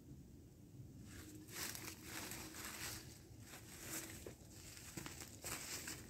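Footsteps crunching through dry fallen leaves, an uneven series of steps starting about a second and a half in.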